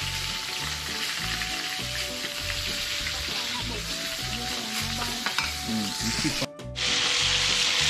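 Hot oil sizzling steadily as lobster fries in a pan. The sizzle drops out briefly near the end and comes back louder. Soft background music with a steady low beat runs underneath.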